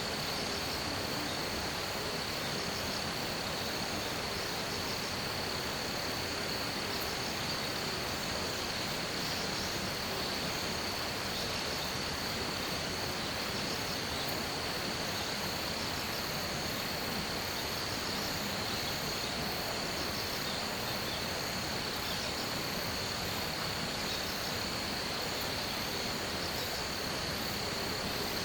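Steady chorus of insects: one constant high-pitched trill, with another insect pulsing rapidly higher still, over an even hiss.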